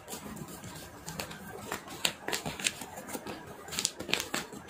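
A strip of paper being folded and creased by hand: irregular short crackles and rustles, with a few sharper ones after the middle and near the end.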